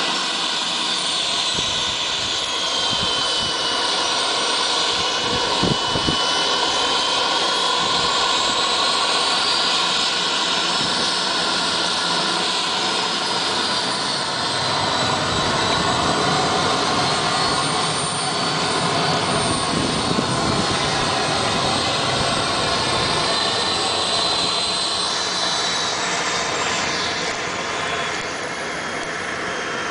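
Jet turbine of a BAe Hawk RC model jet running steadily, a loud rushing roar with a high whine that slowly falls and rises in pitch as the throttle or its distance changes. A couple of brief knocks about six seconds in.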